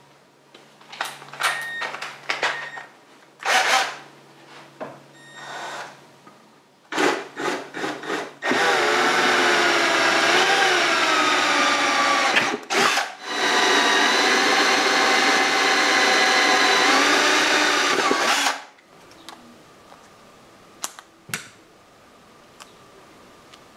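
Power drill running in two long stretches of about four and five seconds, its pitch wavering slightly under load, after several seconds of clicks and short bursts. It is boring a 5 mm hole down the centre of a broken plastic fairing post.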